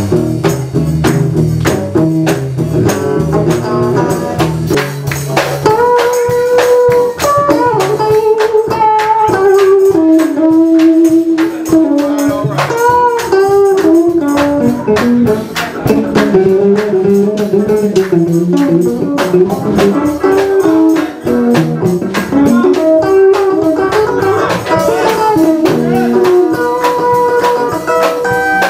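Live gospel band music: drum kit and hand-shaken tambourines keep a steady beat under a lead guitar melody. A heavy bass line sounds for the first five seconds or so, then drops away.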